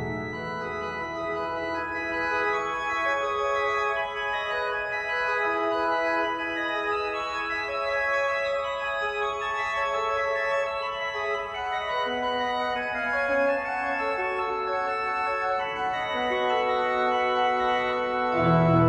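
Steinmeyer/Lenter pipe organ playing a soft passage of slowly changing sustained chords without pedal bass. A lower voice joins about two-thirds of the way through, and a loud deep pedal bass comes in just before the end.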